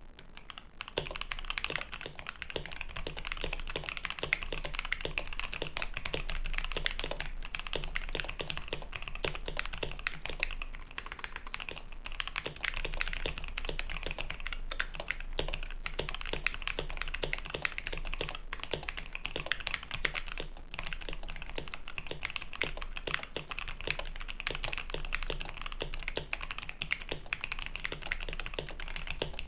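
Two mechanical keyboards, a KBD67 Lite and a D65, typed on at the same time: a dense, continuous stream of overlapping key clacks that starts about a second in.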